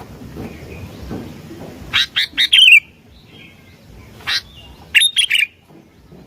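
Sooty-headed bulbul (kutilang) singing: a quick run of four sharp, bubbly notes about two seconds in, a single note past four seconds, then another quick run of notes near five seconds.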